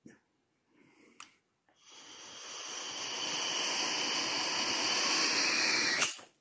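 A person's long breath out close to the microphone: a steady rush of air that builds over a couple of seconds, holds, and cuts off abruptly after about four seconds. Two faint clicks come before it.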